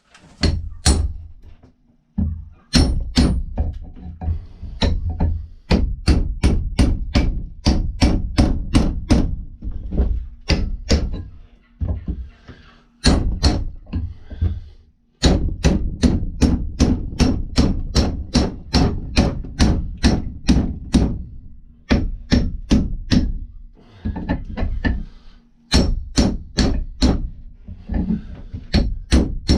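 Repeated hammer blows, about two a second in runs broken by short pauses, knocking the old wooden handle out of an axe head.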